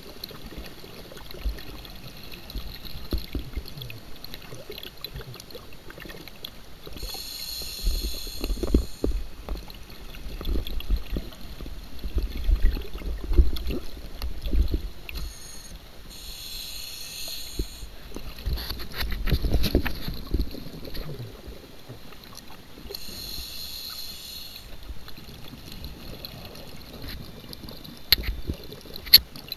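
Scuba diver breathing through a regulator underwater. Three hissing inhalations come several seconds apart, each followed by a low burble of exhaled bubbles.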